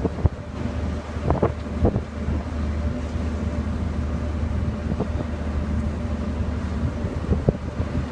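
Steady low hum of a ship's engine and machinery running, with wind buffeting the microphone and a few short knocks about a second in and again near the end.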